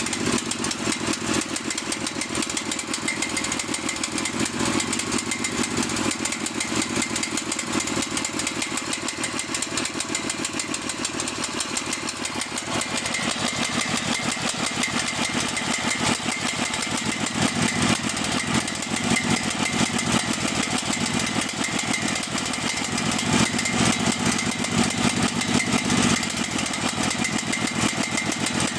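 Cael mini excavator's engine running at a rough, uneven idle.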